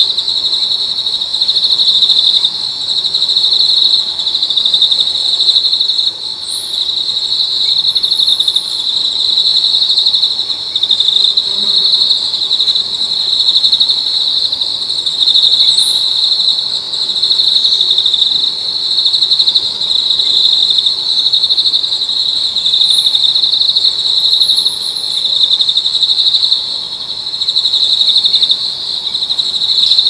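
Steady insect chorus, a continuous shrill buzz with no break. Three times, a very high thin call cuts in, sweeping quickly up and then sliding down.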